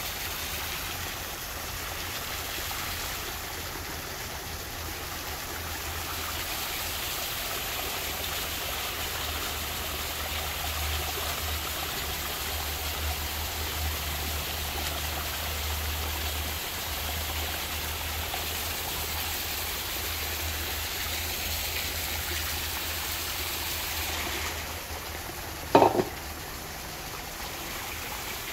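Spring water pouring steadily from a half-pipe spout and splashing onto stones, as a fish is rinsed under it. One sharp knock near the end.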